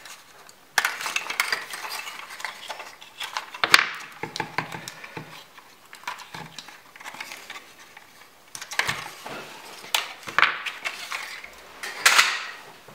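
Batteries being taken out of the kit's packaging and set down on a wooden workbench: irregular small clicks, clinks and rustling, with the loudest clack a little under four seconds in and more bursts near the end.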